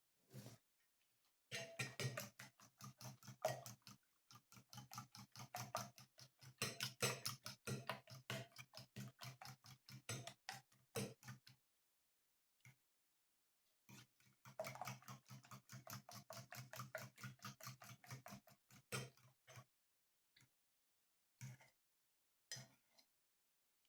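Quick, sharp taps or clicks, several a second, in two long runs with a pause of a few seconds between them and a few stray taps afterwards.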